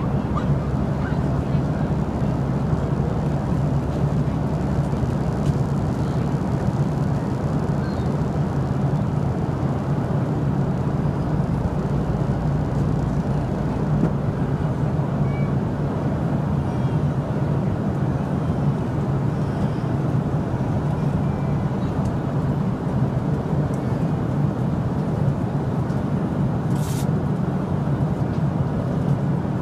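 Steady airliner cabin drone of engines and rushing air, heavy in the low end and unchanging throughout. A brief click sounds near the end.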